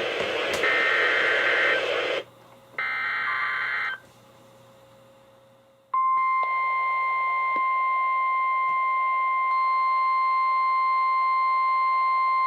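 NOAA Weather Radio emergency alert coming through a weather radio receiver. The first few seconds hold the alert header's SAME digital data bursts over radio static, the last one ending about 4 seconds in. After a short near-quiet gap, the steady 1050 Hz warning alarm tone starts about 6 seconds in and holds, announcing a severe thunderstorm warning.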